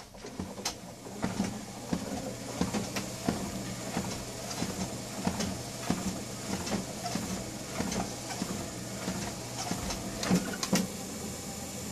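Treadmill motor humming and belt running under walking footsteps, a thump about every two-thirds of a second. Two louder thumps come near the end as the feet are stepped off onto the side rails.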